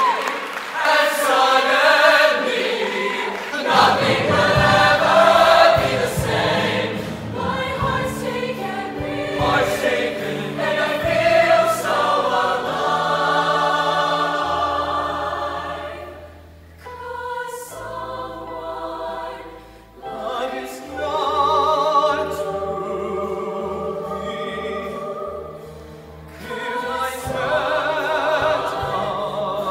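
Mixed show choir singing in harmony with musical accompaniment, easing into a quieter passage about halfway through before building again.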